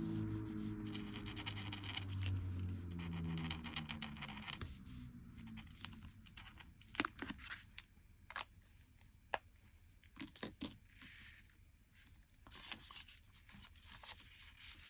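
Quiet paper-craft handling: a paint marker dabbing dots onto origami paper under soft background music, which fades out about a third of the way through. Then come a few separate sharp clicks or taps, and paper rustling near the end as a strip of origami paper is handled.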